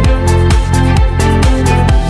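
Electronic dance music with a steady beat over sustained bass notes.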